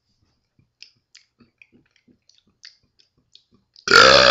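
A man making a few faint mouth clicks, then, near the end, a loud, long deliberate burp that starts abruptly and keeps going.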